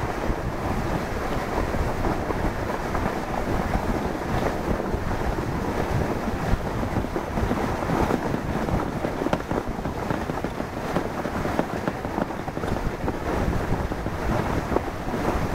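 Pulk sled sliding over snow as it is hauled on rigid pull poles, with wind buffeting the microphone: a steady rough noise.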